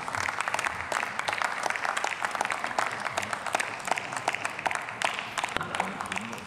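Applause from a small number of members of parliament clapping in a large plenary chamber, thinning out and fading near the end.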